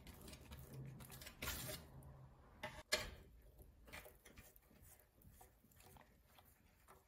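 Thick wet paint squishing and ticking as it is scraped together with a spatula and worked under a glass muller on a glass slab. One sharp knock comes about three seconds in, followed by fainter soft squishing as the muller grinds the paint in circles.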